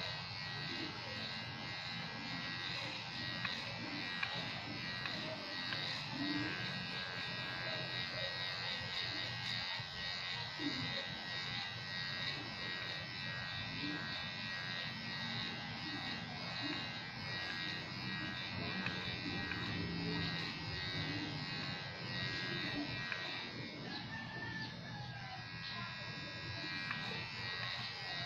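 Electric hair clipper running steadily with a constant buzz as it is passed through hair on the head.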